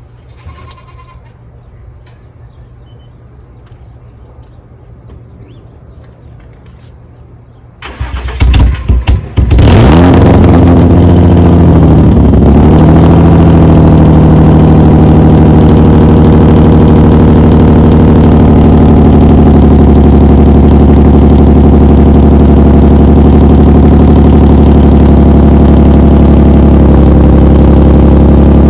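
Infiniti G35's 3.5-litre V6 being started after new ignition coil packs: the starter cranks briefly about eight seconds in, the engine catches with a rev flare that drops back within a few seconds, then it idles steadily and loud.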